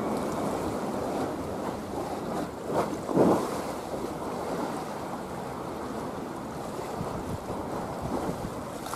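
Wind buffeting the microphone over a choppy sea, a steady rushing with two stronger gusts about three seconds in.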